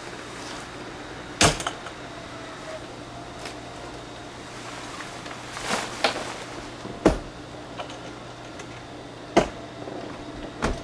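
A few sharp knocks and clunks at irregular intervals, from work inside an A-frame pop-up camper as it is being set up, over a steady low hum.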